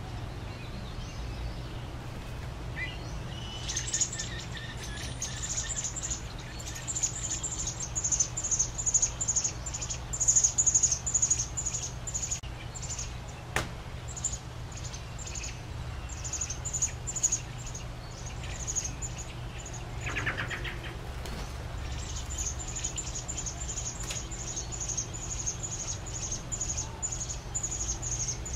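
American robin nestlings begging for food: long runs of short, high, thin chirps at about three a second, over a steady low hum.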